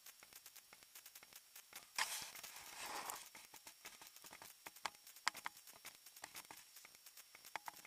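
Faint handling noise from a handheld camera being panned: scattered small clicks and ticks throughout, with a brief rustle of about a second around two seconds in.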